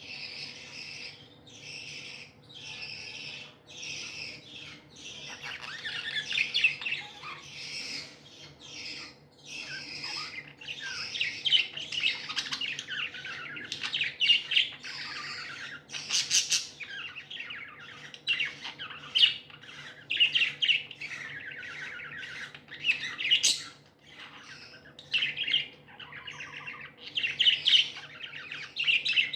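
A group of budgerigars chirping and chattering. It starts with a run of evenly spaced chirps, about one a second, then turns into busier overlapping warbles with sharp, loud squawks.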